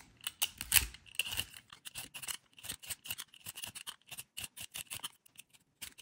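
Y-peeler blade scraping the peel off a raw kohlrabi bulb in quick repeated strokes, several a second, with crisp rasping shaves of peel coming away, and a short pause near the end.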